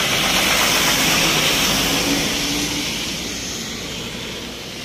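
A state transport bus's engine running as the bus passes on a wet road, with tyre hiss, growing quieter through the second half.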